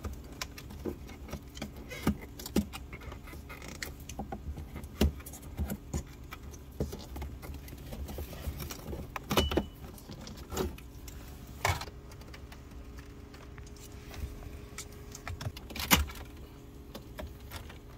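A plastic pry tool working a Cadillac CTS-V's dashboard trim strip loose: scattered clicks, snaps and light plastic knocks, the sharpest snap near the end. A steady low hum runs underneath.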